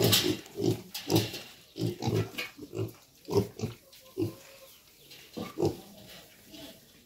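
A group of white piglets grunting: short low grunts come one or two a second, thinning out near the end.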